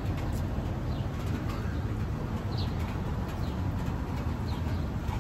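Steady rain falling, an even wash of noise, with a few faint bird chirps over it.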